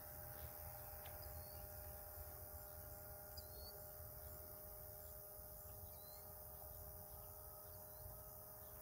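Faint, steady hum of a distant electric RC plane's Racerstar BR2205 brushless motor spinning an APC 8x4 folding propeller, with a low wind rumble on the microphone. A few short high chirps come through every couple of seconds.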